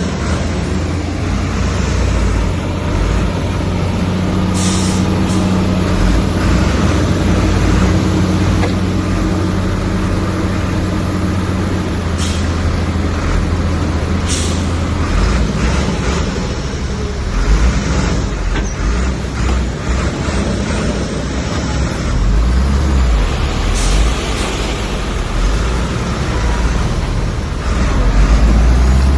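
Heavy diesel earthmoving machinery running and working under load, its engine pitch shifting as the load changes, with short high hisses about three times.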